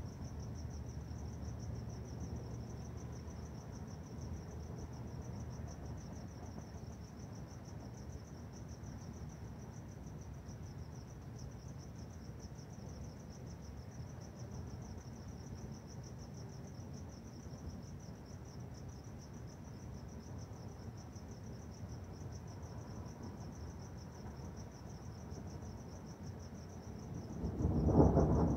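Crickets chirping in a steady, rapidly pulsing high trill over a low rumbling background. Near the end a loud peal of thunder rises over them.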